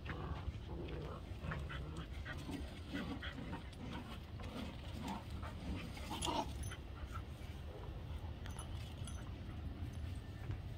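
Two dogs playing tug-of-war with a rope toy: panting and short low vocal sounds throughout, with a sharper, higher cry about six seconds in.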